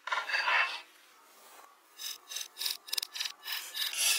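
Knife blade scraping bark and wood from a log: one long scrape at the start, then after a short pause a run of quick scraping strokes, about five a second.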